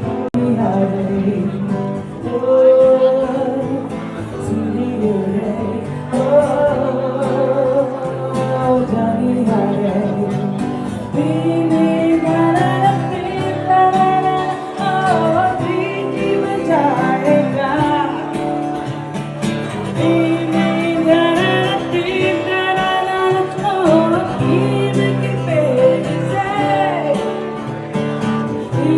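A song plays: singing over guitar and steady accompaniment.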